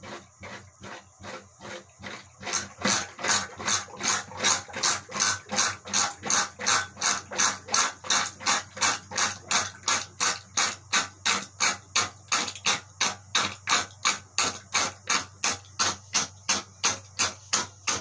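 Whale Gulper 220 diaphragm sump pump running, a steady pulsing at about three strokes a second. About two and a half seconds in it gets louder and hissier as it draws air from the emptied tub drain.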